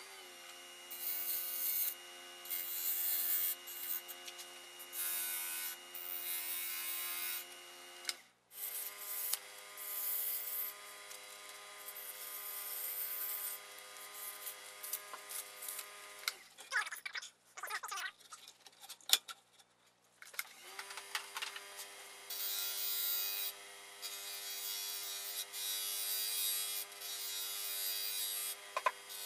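Electric wood lathe motor whining steadily while a turning tool cuts the spinning wood in repeated hissing passes. The motor shuts off about sixteen seconds in and spins back up to speed about four seconds later.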